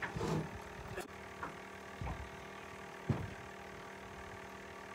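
A steady low mechanical hum runs throughout, with four soft knocks, the sharpest about three seconds in, from fishing gear being handled in a small boat.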